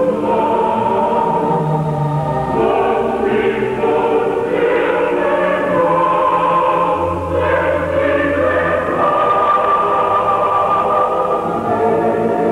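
Background music of a choir singing held chords, with little treble.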